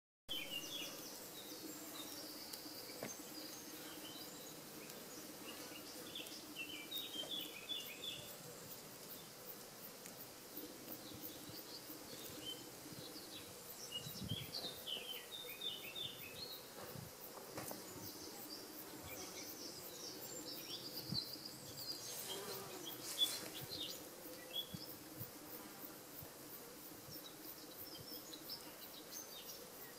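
Outdoor ambience of small birds chirping and twittering in short repeated phrases over a faint steady hum, with a couple of louder, sharper sounds a little over twenty seconds in.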